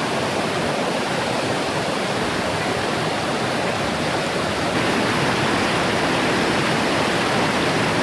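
A tall waterfall, about 100 feet, in full flow, with its cascade spilling over rocks into a pool: a steady, heavy rush of falling water that gets a little louder about halfway through.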